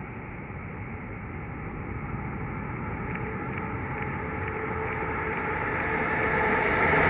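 FS E646 electric locomotive hauling a historic train, its rumble of wheels on rails growing steadily louder as it comes closer, with a few faint ticks about halfway through.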